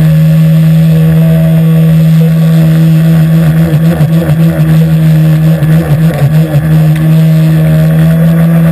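SuperTigre nitro engine of an Aquacraft R/C airboat running fast with its air propeller: a loud, steady, high drone. From about three and a half to six and a half seconds in, the pitch wavers and the sound flutters rapidly, then it steadies again.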